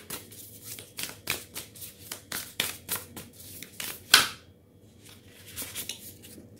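A deck of divination cards being shuffled by hand: quick, crisp card clicks several times a second, ending in one louder snap about four seconds in, then a few soft taps.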